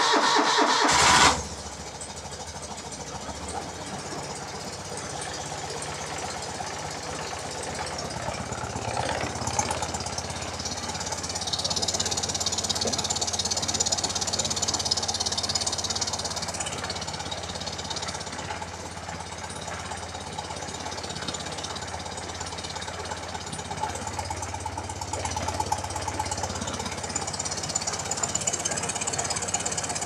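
BMW R90/6 air-cooled flat-twin (boxer) engine started on choke: loud for about the first second as it catches, then settling into a steady idle. The valve train is really quiet, with none of the top-end tick that was being chased, which the owner had put down to a push rod touching its tube.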